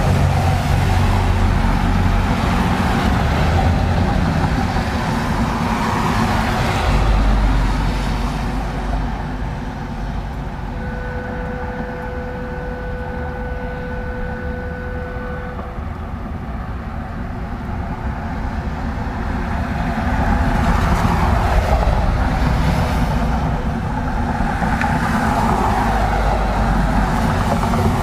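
Cars driving past on a wet road, their tyres hissing on the wet asphalt, the sound swelling and fading with each vehicle. In a lull in the middle a faint steady tone holds for a few seconds, then traffic builds again near the end as a pickup truck passes.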